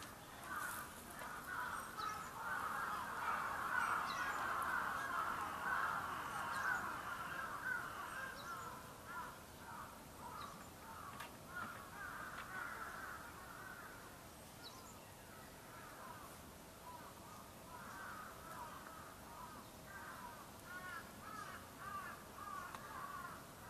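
Many birds calling at once: a dense chatter of short overlapping calls, loudest in the first third, then thinning out, with separate calls picking up again near the end. A few sharp clicks sound over it.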